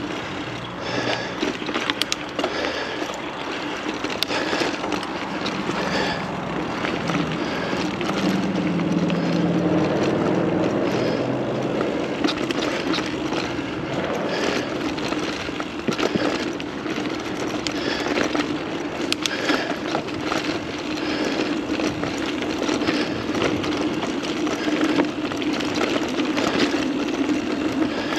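Mountain bike rolling along a dirt trail: steady tyre and wind noise with frequent clicks and rattles over the bumps, and a steady hum from about eight seconds in.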